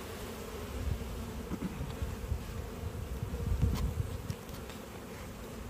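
Honeybees buzzing around an open hive, a steady hum. There are low rumbles and a short knock about two-thirds of the way through as the wooden inner cover is set onto the hive box.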